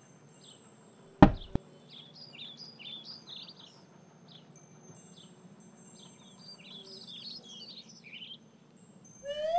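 Cartoon birdsong of short high chirps, coming in two bursts. A sharp knock about a second in, with a smaller one just after, as the reel part drops into the toy truck's bed. A rising, whistle-like glide comes near the end.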